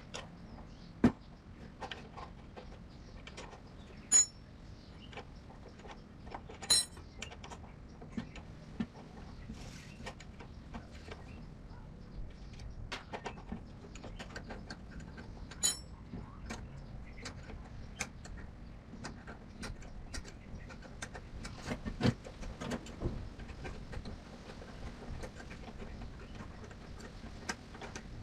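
Scattered metallic clinks and knocks, as of hand tools and metal engine parts being handled and set down during work on a gasoline engine. A few strikes ring brightly; the rest are dull taps over a low steady background.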